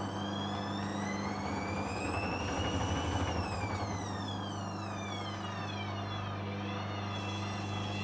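Hoover Dynamic washing machine's drum motor whining up in pitch as the spin speeds up, then winding down from about three seconds in, over a steady low hum. The spin is cut short by a suds lock: too much foam in the drum.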